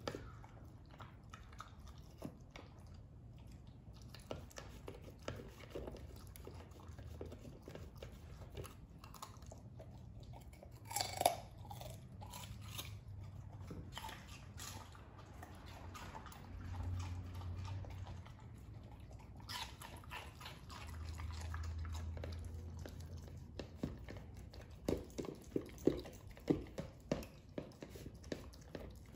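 Welsh corgi eating from a plastic slow-feeder bowl: chewing and crunching, with many short clicks and knocks of teeth and food against the bowl. A sharper knock comes about 11 seconds in, and a quick run of clicks comes near the end.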